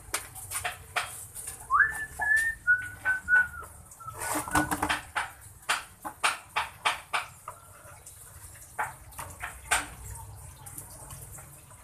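A flat blade scraping and knocking against a plastic basin as damp fishing groundbait is chopped and mixed, a quick run of scrapes and taps. About two seconds in comes a short whistle of a few held notes, stepping down in pitch.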